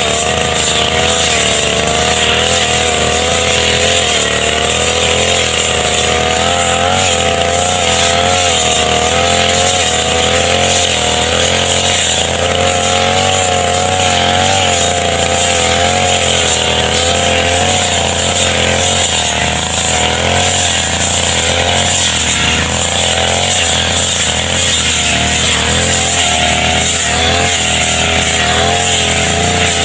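Small two-stroke brush cutter (grass trimmer) engine running continuously, its revs wavering up and down unsteadily.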